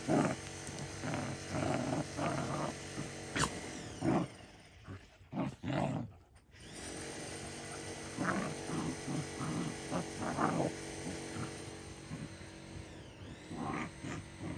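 Two Belgian shepherd mix dogs play-fighting, growling in short repeated bursts, with a lull about four to seven seconds in before the growling picks up again.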